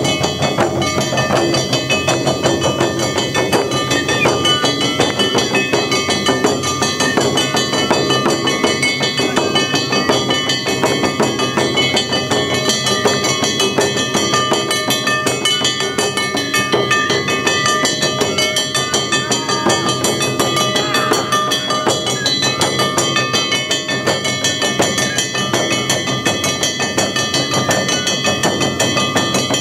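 An ensemble of large shoulder-slung taiko drums beaten with sticks in a fast, steady, driving rhythm. A hand-held metal gong (kane) clangs along over the drums, ringing through.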